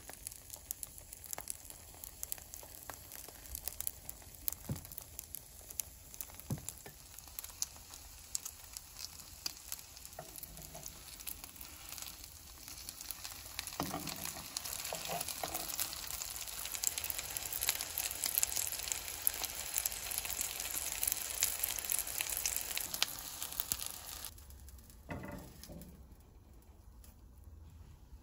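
Oyster pancakes in egg batter frying in oil in a nonstick pan: a steady sizzle full of small crackling pops. The sizzle grows louder past the middle, then stops suddenly near the end, followed by one short thud.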